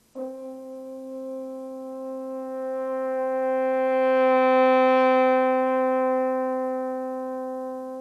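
French horn holding one long, steady note that starts quietly, swells to its loudest and brightest about halfway through, then tapers back down. It is a slow crescendo-decrescendo long-tone exercise for breath support and control.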